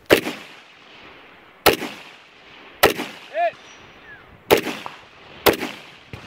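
AR-style carbine firing five slow, aimed single shots, about one to two seconds apart, each with a short echoing tail. A brief ringing tone follows the third shot.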